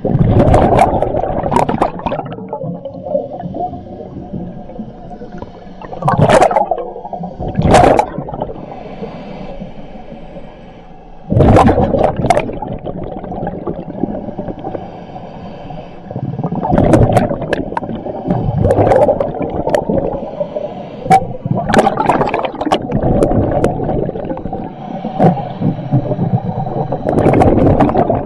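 A scuba diver breathing underwater: loud rushes of exhaled bubbles every few seconds, over a steady low rumble.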